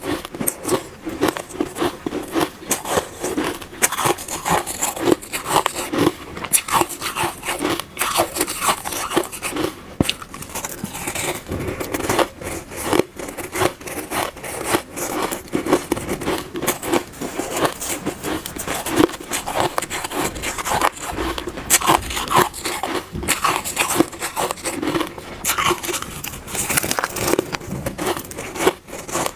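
Close-miked crunching and chewing of soft shaved ice, a dense run of small crisp crackles with each bite.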